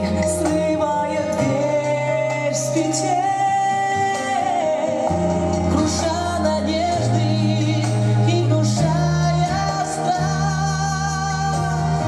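Group of voices singing a song with instrumental accompaniment, held bass notes changing every second or two under the melody.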